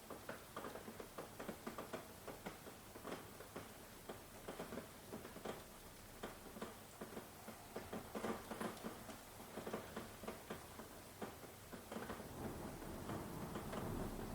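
Rain pattering, many irregular drops ticking on a surface. A low rumble builds and gets louder near the end.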